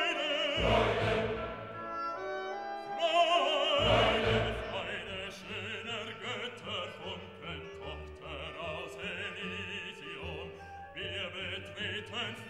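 Orchestral music with operatic singing, the voice holding wavering notes with vibrato over the orchestra. Two deep bass swells come about half a second and four seconds in.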